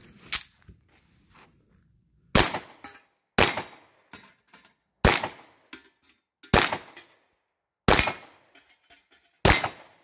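Sarsilmaz B6 9mm pistol firing six single shots, spaced about one to two seconds apart, each with a short echoing tail. A short sharp click comes near the start.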